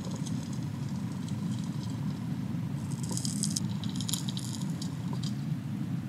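River water running over a gravel bed: a steady low rumble, with bursts of fine clicking and rattling of pebbles near the start and again about three and four seconds in.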